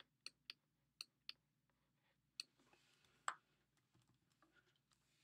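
Faint sharp clicks and light scratching of a stylus tapping and moving on a tablet as handwriting is drawn: a quick run of clicks in the first second or so, then a louder single click about three seconds in.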